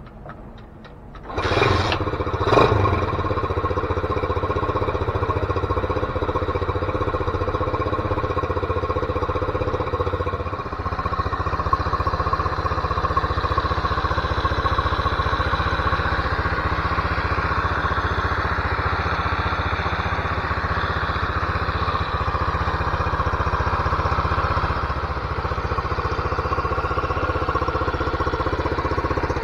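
The single-cylinder four-stroke Lifan semi-automatic engine swapped into a 1980 Honda CT110 Trail 110 starts about a second and a half in and blips up briefly. It then idles steadily.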